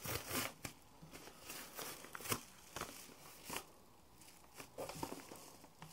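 Padded jiffy-bag mailer being torn and pulled open by hand: irregular paper rips and crinkles, thinning out after about four seconds.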